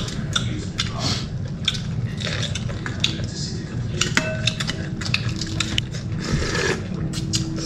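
Clinks and clicks of a ceramic soup spoon and tableware against ceramic bowls and plates during a meal, scattered and irregular, over a steady low hum.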